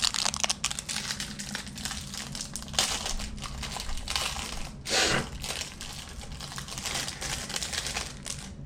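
A football card pack's wrapper crinkling and the cards being handled, a continuous run of small crackles and rustles with a louder rustle about five seconds in.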